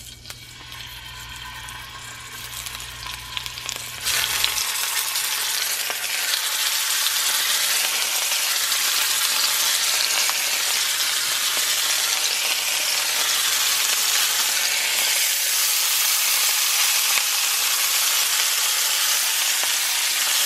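Cubes of raw red meat being dropped into hot oil in a cast iron skillet, sizzling. The sizzle starts faint, jumps louder about four seconds in, and keeps building to a steady loud fry as more pieces go in.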